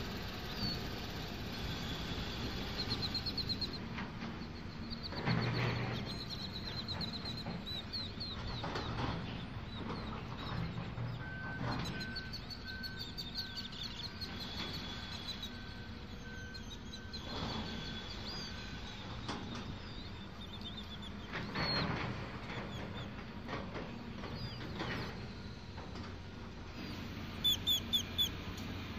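Outdoor ambience of songbirds chirping and trilling over a low, steady hum of machinery. An evenly spaced beeping, about one beep a second, runs for several seconds in the middle. There are a couple of brief louder rushes of noise, and three loud bird calls near the end.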